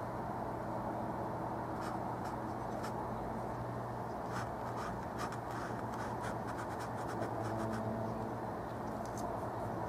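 Paintbrush scratching and dabbing oil paint onto canvas in short strokes, busiest in the middle and again near the end, over a steady low hum.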